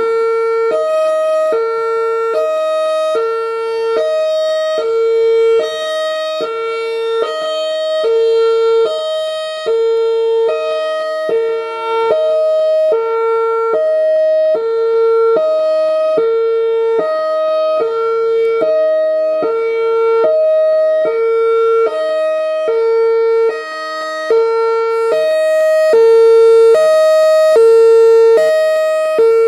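Whelen Vortex R3 outdoor warning siren sounding its hi-lo signal: a high and a low tone alternating, about one high-low cycle a second. It starts abruptly, its loudness swells and dips, and it is loudest near the end.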